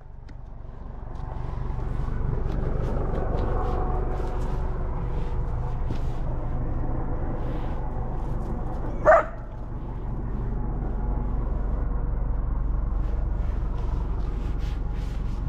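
Steady low rumble with one short, sharp animal call about nine seconds in.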